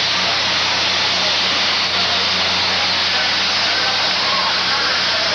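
Steady loud rushing noise of a large building fire and the firefighting around it, recorded on an old camcorder with a steady low hum underneath. Faint voices rise and fall in the background.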